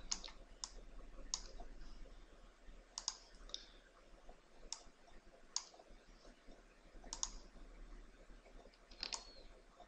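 Computer mouse clicking: about nine short, sharp clicks at uneven intervals over a faint steady low hum.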